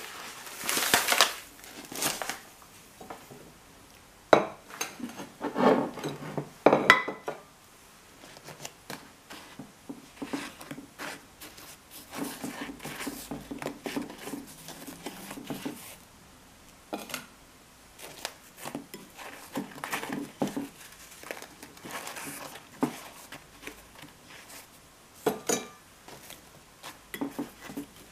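Paper bag crinkling as sugar pours out of it into a ceramic dish about the first two seconds. Then soft rustling of granulated sugar and scattered light taps on the ceramic dish and plate as fried mini doughnuts are rolled in the sugar by hand.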